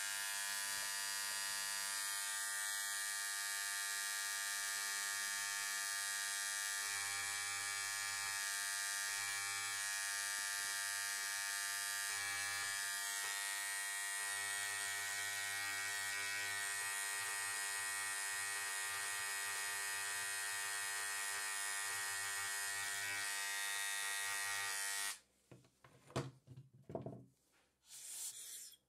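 Pneumatic air scribe buzzing steadily as its needle chips shale away from a trilobite fossil, with a high hiss of air over the buzz. It cuts off sharply about 25 seconds in, followed by a few short knocks.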